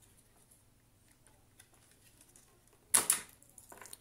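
Hands handling the Dyson DC07's switch wiring and plastic parts: faint small ticks, then a sharp click with a short rattle about three seconds in and a smaller click near the end.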